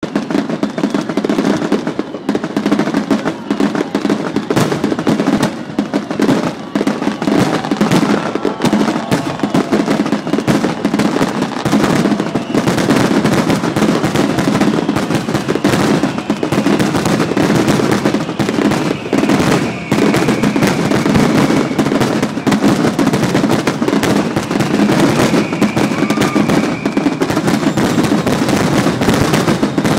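Fireworks finale: a rapid, continuous barrage of shells bursting and crackling, the bangs packed too closely to separate. Twice a high whistling tone runs over the bangs, around the twentieth second and again later on.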